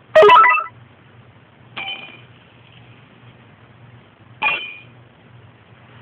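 Three sharp, ringing metallic clinks. The first is the loudest and rings for about half a second, then a weaker one comes about two seconds in and a strong one about four and a half seconds in. These are cues for a sound-following robot to steer toward. A faint, steady low hum runs underneath.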